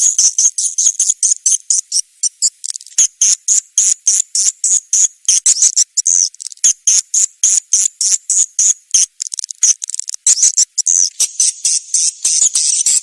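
Swiftlet lure call: a recording of swiftlet chirps, a fast run of short, high-pitched chirps, several a second, that turns denser and hissier near the end.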